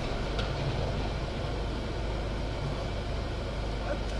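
Steady low rumble of a car stopped in city traffic, its engine idling, heard from inside the cabin with the street's traffic noise around it.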